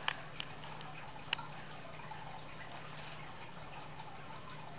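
Quiet room tone: a steady low hum and hiss, with three faint small clicks in the first second and a half.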